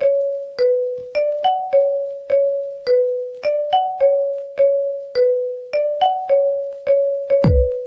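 Ringtone music: a short melody of plucked, bell-like keyboard notes repeating about every three seconds, with a deep bass beat coming in near the end.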